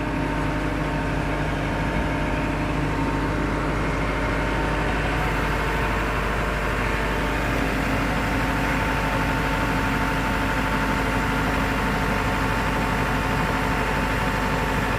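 Heavy diesel engine of earthmoving or paving machinery running steadily, with a few constant tones over an even rumble.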